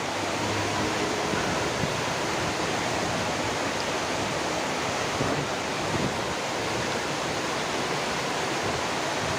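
Steady rushing of fast, shallow flowing water.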